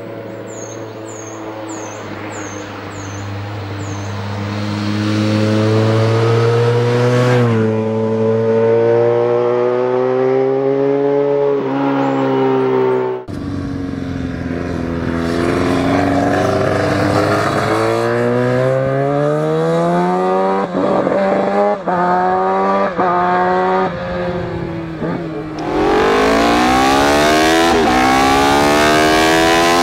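A Honda VFR1200F's 76° V-4 engine pulls hard and grows louder, the pitch dropping with an upshift and climbing again. After a cut, a Honda RC30/RC45-type 90° V-4 with a 360° crank, the 'droner' sound, revs hard on a race track through a quick run of upshifts. From near the end, the V-4 of a Honda RVF750 (RC45) is heard from the saddle, accelerating hard with its pitch rising.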